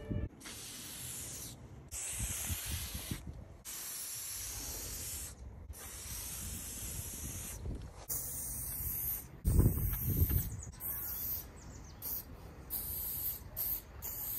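Aerosol spray paint can hissing as it sprays outline lines: long strokes of a second or two with short breaks between, then shorter, quicker bursts in the second half. A brief loud low rumble about ten seconds in.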